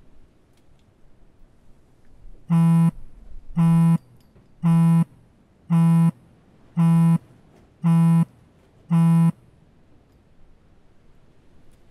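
Smartphone on vibrate, buzzing against the wooden slats of a bench with an incoming call: seven short buzzes about a second apart that stop about two seconds before the end.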